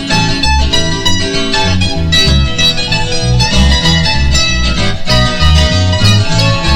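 Instrumental break in a country-blues song: acoustic guitar and mandolin picking a steady run of notes over a regular bass line, with no singing.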